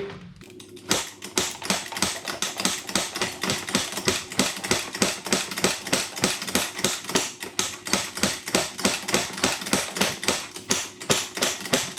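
Can-Am's electric starter clicking fast and evenly, about four taps a second, without the engine catching. This is a failed start attempt on an ATV whose engine had been under water.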